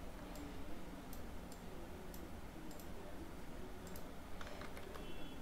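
Faint computer mouse clicks, roughly one or two a second, over a low steady hum.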